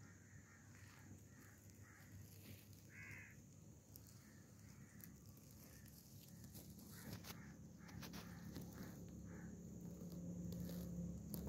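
Near silence with faint, repeated short bird calls and a few small clicks. A low rumble grows near the end.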